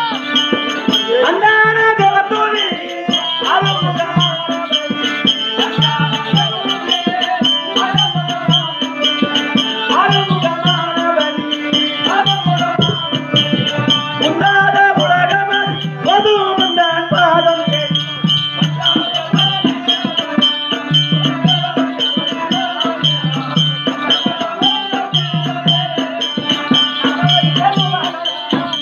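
Live Tamil folk-drama stage music: a voice singing a winding melody over sustained drone tones. A drum beats a repeating low pattern about once a second, and a bright rattling or ticking percussion keeps a fast, even beat.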